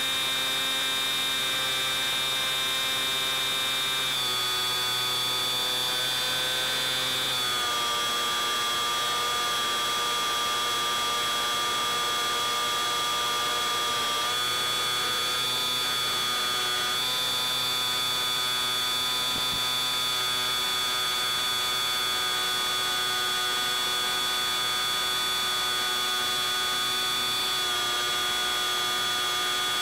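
Electric motor and pusher propeller of a Bixler 3 model plane running in flight, heard as a steady buzzing whine. Its pitch shifts slightly several times.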